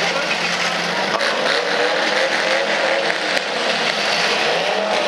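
Engines of several demolition derby cars running and revving together, their pitch rising and falling, over a steady wash of noise, with one sharp knock about three seconds in.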